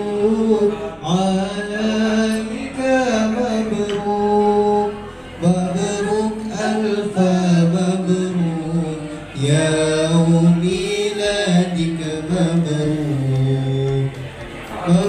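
A man's voice singing a slow religious chant, with long held notes that bend and waver in pitch, broken by short breaths between phrases.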